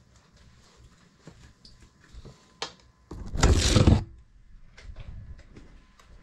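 Rustling and light clicks picked up by a small FPV drone's onboard camera while it is wedged under fabric. About three seconds in comes a loud rush of noise lasting about a second, as the drone comes free and its view turns over.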